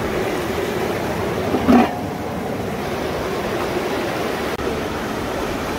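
Steady rush of a fast-flowing river, with a brief louder sound just under two seconds in.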